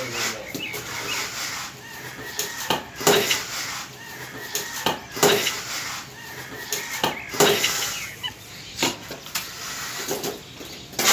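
Cement mortar being slapped and spread onto a hollow-block wall with a steel trowel, with sharp slaps about every two seconds, often in quick pairs, and scraping between them.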